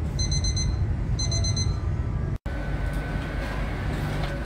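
Commuter train's door warning beeper sounding two quick runs of rapid high beeps over the low rumble of the train. The sound drops out for an instant about two and a half seconds in, then a steady low train hum with a faint high tone goes on.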